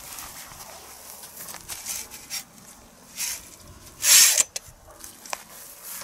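Handling noise on dry grass: rustling and crunching of grass underfoot and under the slingshot rifle's bipod, with light clicks and knocks of its metal frame. One louder rustling scrape about four seconds in, and a sharp click a second later.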